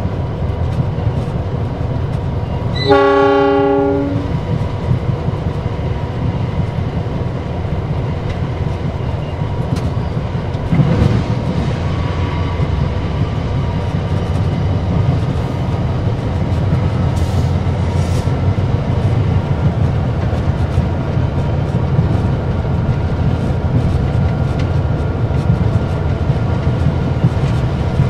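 Inside the cab of a CC 206 diesel-electric locomotive under way: a steady low rumble of the engine and wheels on the rails. About three seconds in, the locomotive's horn sounds once for about a second.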